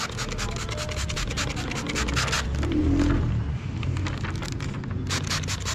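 Window tint film crinkling and rubbing against the car's window glass as it is pressed and smoothed into place, a rapid run of scratchy crackles that comes in two spells.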